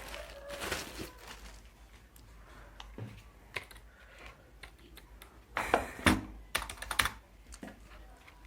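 Keys of a Dell KM117 wireless keyboard being pressed and handled, scattered clicks with a quicker run of louder key taps about two-thirds of the way through.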